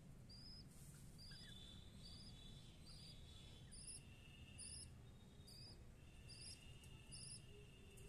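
Faint, high chirps, each short and slightly wavering, repeating at an even pace about once a second, nine or so in all.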